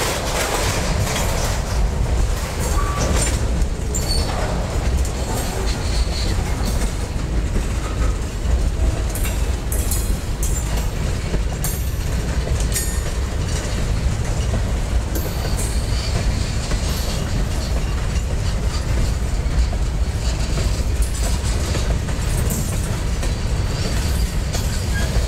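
Loaded tank cars of a freight train rolling past: a steady low rumble of steel wheels on rail, with a running clatter of clicks as the wheels cross the rail joints.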